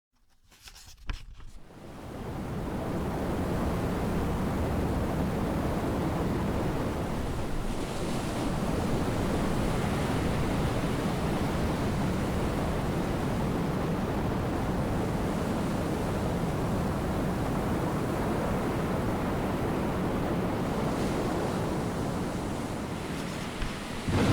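A steady rushing noise effect fades in over the first two seconds, after a couple of soft knocks about a second in, and then holds even throughout.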